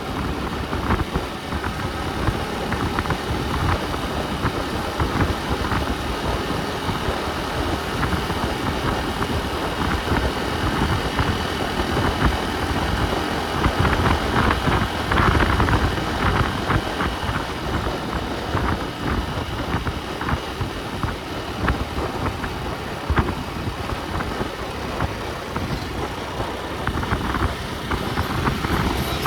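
Motor vehicle on the move: steady engine and road noise, with many small clicks and rattles throughout.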